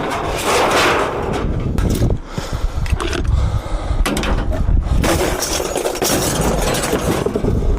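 Scrap metal being thrown and dragged onto a load: continuous metal clattering and scraping, with many knocks and a sharp bang about four seconds in.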